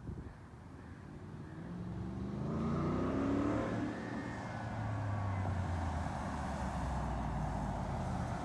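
Naturally aspirated 5.0 V8 of a Ford F-150 Shelby Super Snake accelerating hard from a launch toward the listener. The engine note climbs steadily, drops back about four seconds in, then holds while the truck's road noise builds as it draws near.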